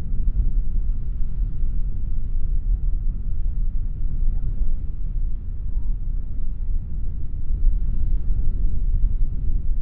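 Breeze buffeting the microphone in a steady low rumble, with no distinct events.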